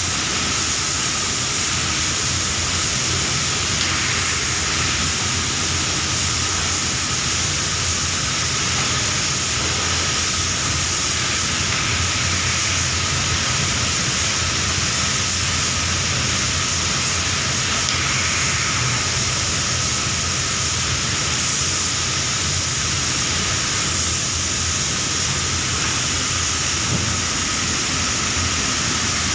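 Steady, even hiss of a compressed-air spray gun applying clear lacquer, over the continuous hum and rush of the spray booth, with no let-up.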